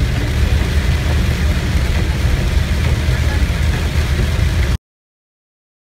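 Steady car-interior noise while driving in heavy rain: a low engine and road rumble with an even hiss of rain on the windshield. It cuts off suddenly about five seconds in.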